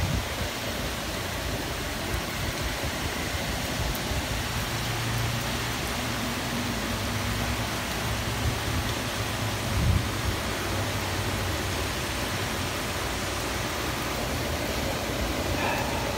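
Heavy rain pouring steadily, a dense even hiss. A low rumble comes and goes under it, with a short low thump about ten seconds in.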